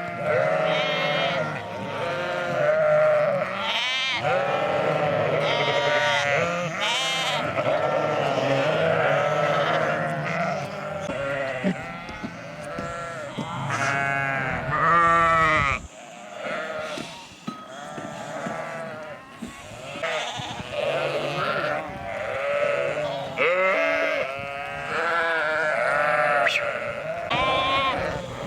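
A flock of sheep bleating, many wavering calls overlapping almost without a break, with a short lull about sixteen seconds in.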